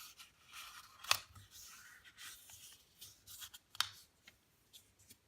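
A sheet of white printer paper being folded and creased by hand: soft rustling, with two sharp crackles, about a second in and near four seconds.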